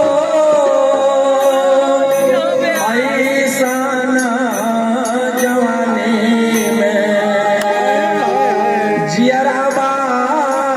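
Purvi folk song: a wavering, ornamented melody held over sustained accompaniment, with light percussion strikes at an even beat.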